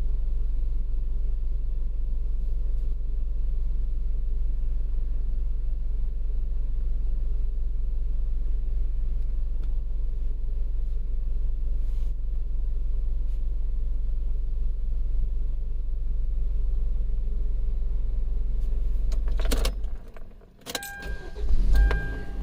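A 2011 Kia Sorento runs with a steady low hum, which cuts off with a click about twenty seconds in. Keys then jangle, and a dashboard warning chime starts beeping in a quick repeating pattern.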